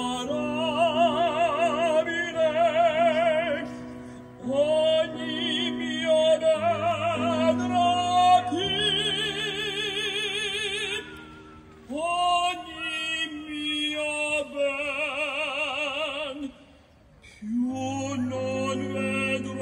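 Mixed choir singing a slow song in long held phrases, the upper voices with a wide vibrato over steady low notes, amplified through outdoor PA speakers. The sound drops briefly between phrases about four, eleven and seventeen seconds in.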